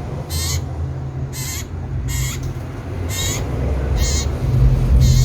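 Cipoh sirtu (an iora) calling loudly, the same short high call repeated about once a second, six times. A steady low rumble runs underneath and grows louder near the end.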